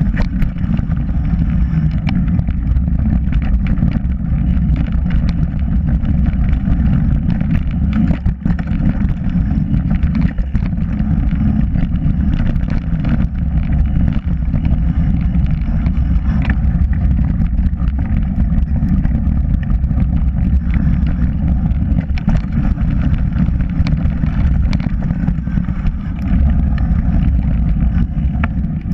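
A mountain bike riding fast down a dirt singletrack: wind buffets the bike-mounted camera's microphone and the tyres rumble over the trail, with frequent small rattles and knocks as the bike hits bumps.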